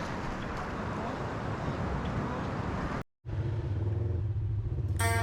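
A steady rush of wind and surf noise that cuts off abruptly about three seconds in. Then comes a steady low engine drone of an ATV running, with music starting at the very end.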